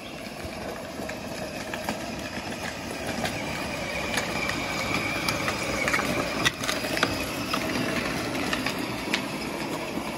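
Battery-powered ride-on toy Land Cruiser driving, its small electric motors and plastic gearboxes giving a steady whine, with scattered clicks from the plastic wheels rolling over rough asphalt.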